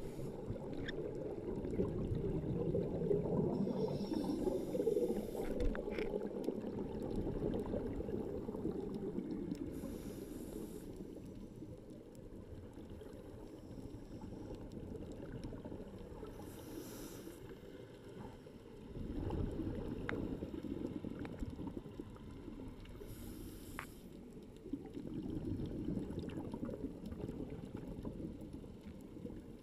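A scuba diver breathing through a regulator underwater: a short hiss of inhalation about every six to seven seconds, with the low rumbling gurgle of exhaled bubbles between.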